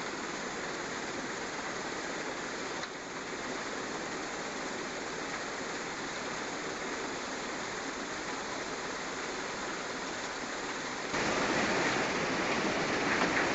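Steady rushing machinery noise from the recycling plant and the wheel loader at work. About eleven seconds in it grows louder as the loader's bucket tips construction and demolition waste into the plant's steel feed hopper.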